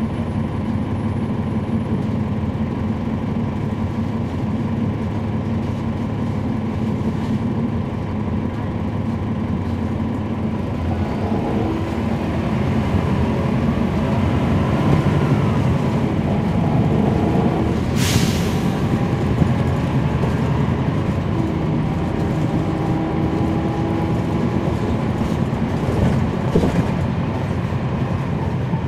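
Inside a 2012 NABI 40-SFW transit bus under way: its Cummins ISL9 diesel engine runs with a steady low drone, its tones shifting and growing louder for several seconds as the bus pulls away. About two-thirds of the way through there is one short sharp hiss of air.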